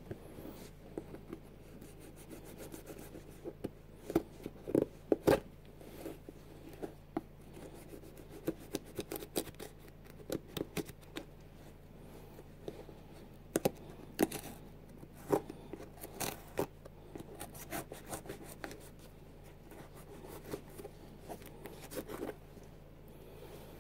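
Hands handling a Nike Air Max 90 sneaker: irregular rubbing, scratching and sharp clicks of fingers working its laces and upper, loudest in two clusters about four seconds in and in the middle.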